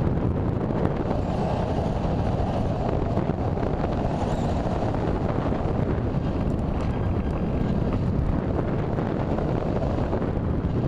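Airflow rushing over the onboard camera of a radio-controlled sailplane in flight, heard as a steady, deep wind noise.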